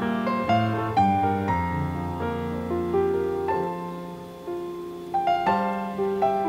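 Background piano music, a slow run of single notes and chords that dips quieter a little past the middle.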